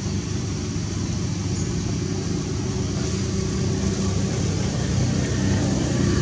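A running engine: a steady low hum with a faint hiss above it, growing slightly louder toward the end.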